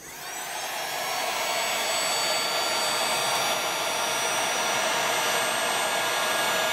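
Handheld hot-air blower switched on and running steadily, warming a cooling fan's peeling paper label to re-stick its adhesive. It comes up to speed over about two seconds, then holds a steady rush of air with a high whine.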